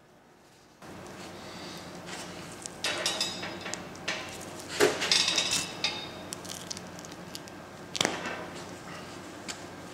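Wolf pelt being pulled down off the hanging carcass: a few short bursts of tearing and rustling as the hide comes away, the loudest about five seconds in, over a steady low hum.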